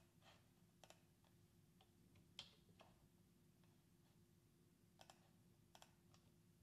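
Faint, scattered computer clicks and key presses, about half a dozen short ticks, over a low steady hum.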